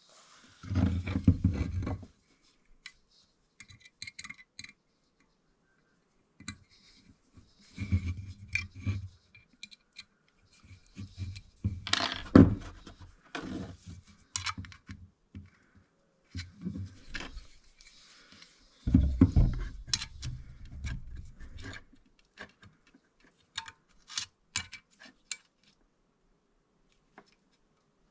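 Steel parts of a Veritas plough plane being handled and adjusted on a workbench: scattered sharp metallic clicks and clinks from the fence, rods and fittings, with four longer bouts of handling noise.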